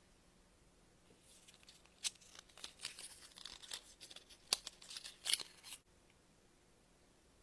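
Small cardboard cosmetics box being opened by hand and a slim product tube slid out of it: crisp rustling and scraping of thin card with several sharp clicks, starting about a second in and stopping abruptly near six seconds.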